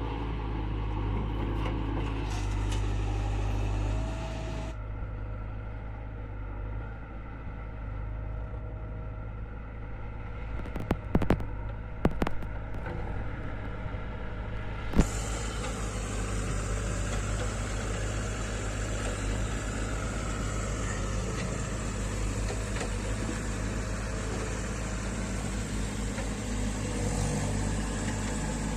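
Diesel engine of a JCB 3DX backhoe loader running steadily, with a few sharp metallic knocks about eleven seconds in and one more a few seconds later.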